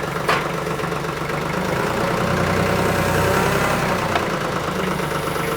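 TYM 2515H compact tractor's three-cylinder diesel engine running, pulling harder for a couple of seconds in the middle as the front loader tries to lift and curl back a load of about 1,726 pounds. A sharp click about a third of a second in.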